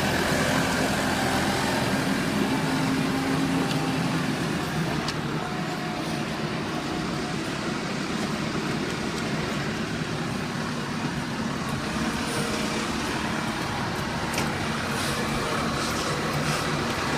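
A motor vehicle's engine running steadily, with a continuous drone and a faint steady hum.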